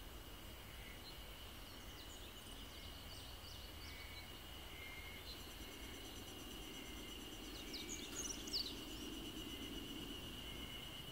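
Faint outdoor ambience: a steady high insect drone with scattered bird chirps, a quick flurry of chirps about eight seconds in, and a faint low hum through the second half.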